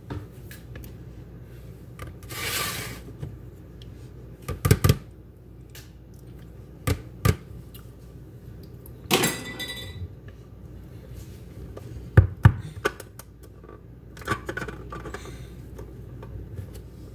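Scattered knocks and clicks of kitchen things handled on a countertop around a closed quesadilla maker, among them a plastic salsa tub set down. The loudest knocks come in pairs, about five, seven and twelve seconds in, with two short rustling bursts between them.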